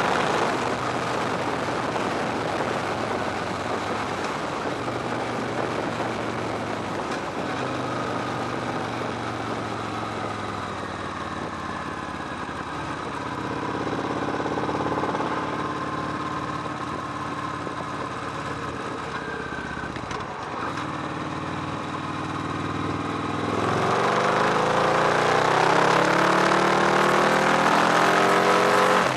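Victory Hammer's V-twin engine underway, recorded close from a fuel-tank-mounted camera. The engine note rises and falls with speed through the middle, then gets louder and climbs steeply near the end as the bike accelerates, with wind rush over it.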